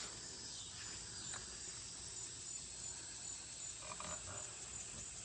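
Steady high-pitched insect chorus of crickets trilling in the background, with a faint short sound about four seconds in.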